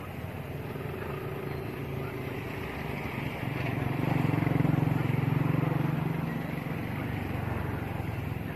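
A low engine drone, like a passing vehicle, growing louder about four seconds in and fading again after about six seconds.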